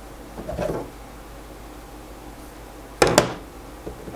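Hard pieces of glue-hardened napkin and paper-towel stock, stiff like plastic or wood, being handled on a countertop: a soft scrape about half a second in, then a sharp double clack about three seconds in as a piece is knocked or set down, and another short clack at the very end.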